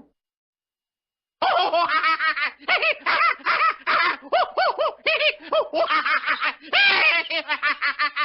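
Laughter sound effect: after a second and a half of silence, a long run of rapid, bouncing laughs in quick pulses.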